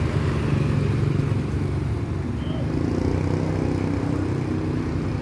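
A small engine idling steadily, with a motor scooter riding past near the start.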